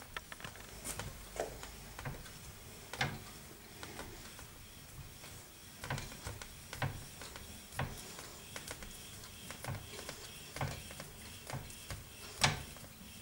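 Hand-cranked tyre-fitting machine being worked to draw the wires of a solid rubber carriage-wheel tyre tight: irregular clicks and metal knocks from its handwheel and mechanism, about one or two a second, with a sharper knock near the end.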